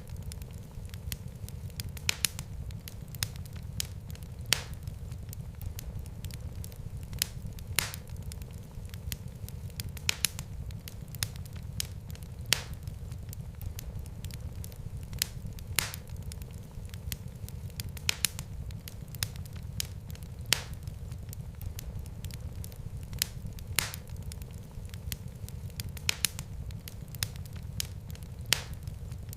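Wood fire burning in a fireplace: a steady low rumble of the flames with sharp, irregular crackles and pops a few times a second.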